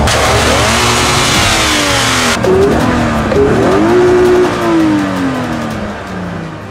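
Subaru BRZ's 2.0-litre flat-four boxer engine free-revving with the car standing still. It is blipped up and let fall back, then revved again and held near 7,000 rpm for about a second before the revs drop away.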